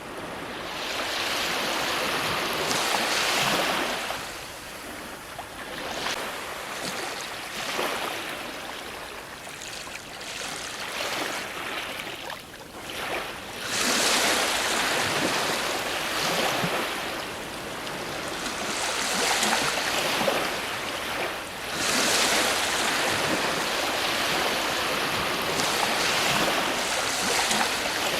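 Ocean waves breaking on a shore: a hissing surf noise that swells and ebbs, with three stronger surges about a second in, near the middle and about two-thirds through.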